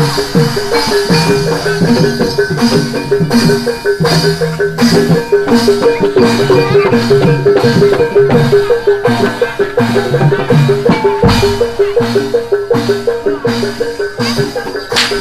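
Live barongan gamelan accompaniment: drums and metal mallet percussion play a fast, repeating interlocking figure.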